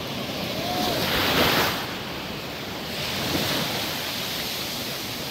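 Ocean surf washing over a pebbly shoreline, a steady hiss of water with one louder surge about a second and a half in.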